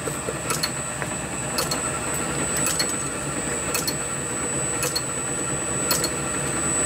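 A motor running steadily, with a high steady whine and a light click about once a second.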